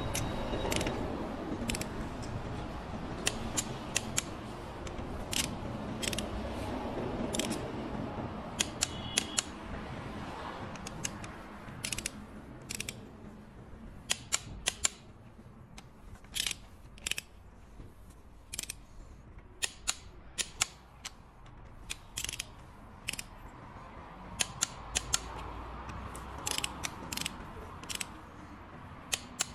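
Long-handled ratchet torque wrench working the cylinder head bolts: sharp metallic clicks, often in quick runs of two to four, scattered throughout. Under them is a steady background hum that is louder in the first third.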